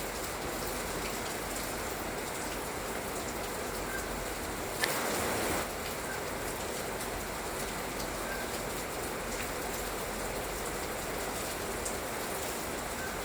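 Light rain falling steadily, an even hiss of many small drops, with a brief louder patch about five seconds in.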